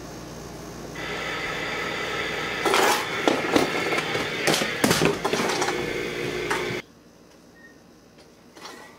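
An alarm clock's buzzer goes off about a second in with a loud, steady multi-tone buzz. From about the third second, aluminium beer cans clatter and knock repeatedly as they are knocked about. The buzzing cuts off suddenly near the end.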